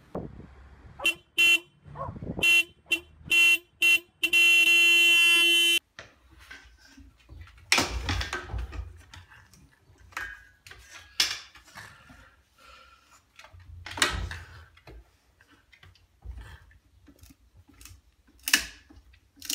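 A horn-like honking tone: six short honks in quick succession, then one long honk of nearly two seconds that cuts off sharply. Then softer scattered clicks and two low rumbles from a French bulldog gripping a stick in its mouth.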